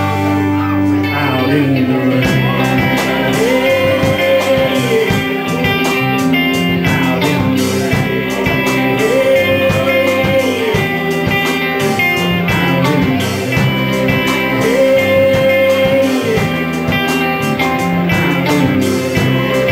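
A live rock band playing: electric guitars over a steady beat, with a long held note that comes back every five or six seconds.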